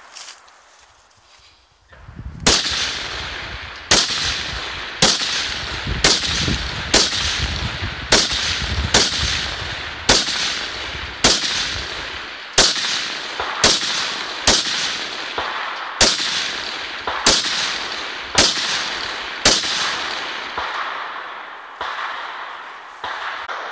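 Rifle firing about sixteen single shots, a little over a second apart, each sharp crack followed by a long fading echo.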